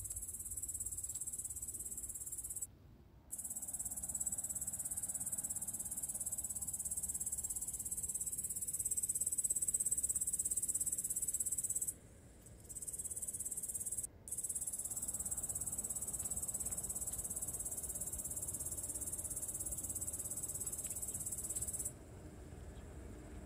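Insects chirring in a steady, continuous high-pitched drone, with brief breaks about three, twelve and fourteen seconds in, fading near the end.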